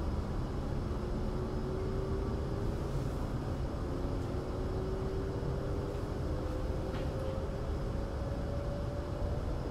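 Interior running sound of a JR East E7 series Shinkansen: a steady low rumble with a whine from the traction motors that slowly rises in pitch as the train gathers speed.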